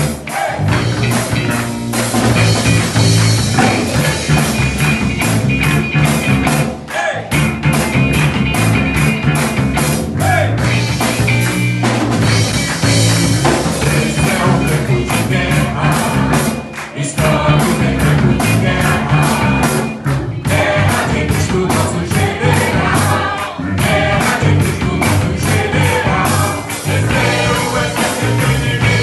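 Band playing a rock-style gospel song, with a drum kit keeping a fast steady beat, electric guitar and voices singing.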